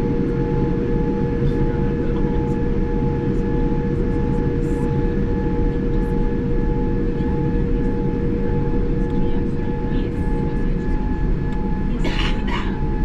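Steady cabin noise inside a Boeing 787-9 airliner: a constant low rumble with a few steady hums over it, one of which fades out about eleven seconds in. Light clicks are scattered through it, and there is a brief rustle near the end.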